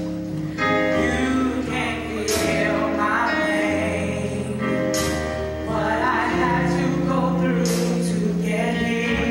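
Gospel song with singing over sustained instrumental accompaniment and a steady bass line.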